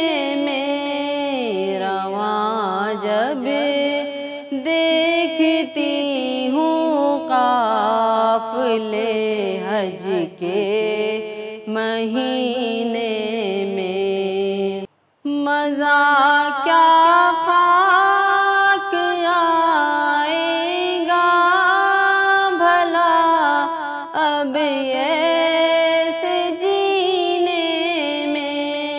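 A woman singing an Urdu naat unaccompanied: a slow devotional melody of long held notes bent with ornamented glides, with one brief breath-break about halfway through.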